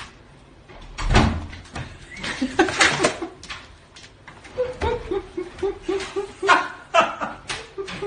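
Plastic cat flap knocking and clacking as cats push through it, with a sharp knock about a second in. From about halfway, a person laughs in short, even pulses, about three a second, over further clicks of the swinging flap.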